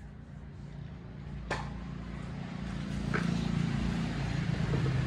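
Low, steady engine hum of a motor vehicle that grows louder over the first few seconds and then holds, with two short clicks from tools being handled.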